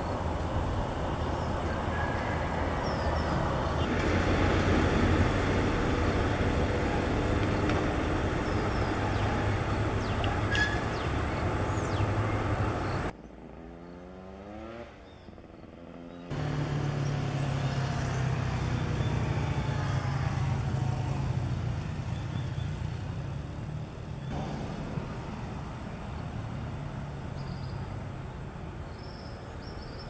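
Steady low hum of motor-vehicle noise, which drops away abruptly for about three seconds midway, leaving a fainter engine tone that slowly rises and falls.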